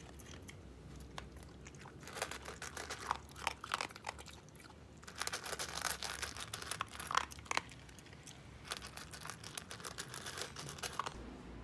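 A corgi crunching dry kibble from a stainless-steel bowl, in runs of quick crunches with short pauses between.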